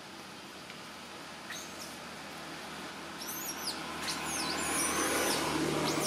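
Bird chirping: a run of quick, high, rising-and-falling calls from about halfway through, over a low background hum that grows louder near the end.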